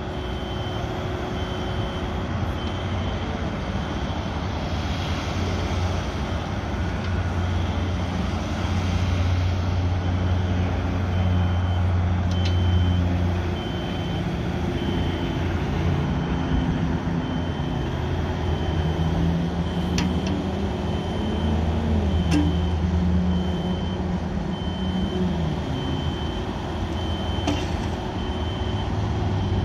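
Yanmar ViO55-6A mini excavator's diesel engine running steadily while the hydraulics work the boom, arm and bucket, its pitch rising and falling under load. A high electronic beep repeats in the background through much of it.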